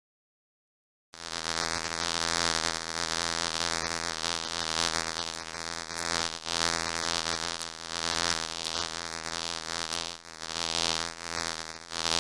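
Bee buzzing: a steady, low, droning buzz that starts about a second in and swells and fades in loudness.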